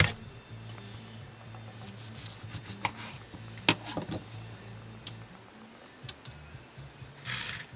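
Scattered sharp clicks and knocks of kitchen items being handled, over a low steady hum.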